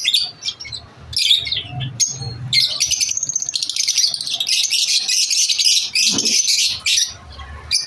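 Lovebirds chirping in a dense, high-pitched chatter. A few short bursts come first, then an almost unbroken stream of chirps from about two and a half seconds in until near the end.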